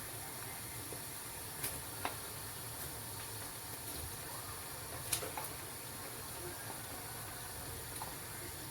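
Onions, pepper and tomatoes frying in oil in a pan: a steady, quiet sizzle, with a few light clicks, the loudest about five seconds in.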